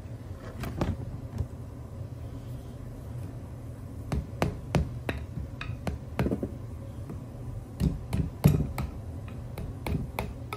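A hammer tapping a flathead screwdriver to drive the old bushings out of an aluminium-framed aftermarket upper control arm: sharp, irregular metal taps in small clusters, the hardest strike about eight and a half seconds in.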